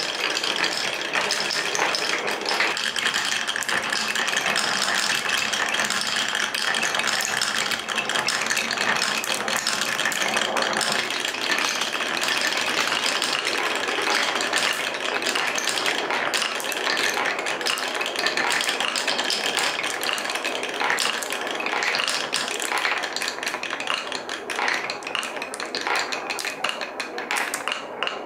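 Many glass marbles rolling through grooved wooden marble-run blocks: a continuous rolling rumble packed with small clicks and clacks as the marbles knock against each other and the wooden walls.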